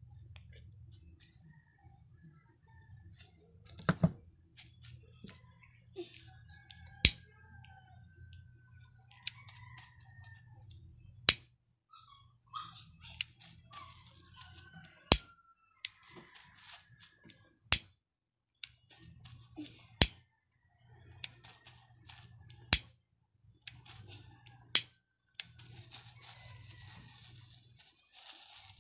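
Scissors cutting a sheet of crinkly green plastic mesh: about eight sharp snips a few seconds apart, with the plastic rustling and crackling as it is handled between cuts.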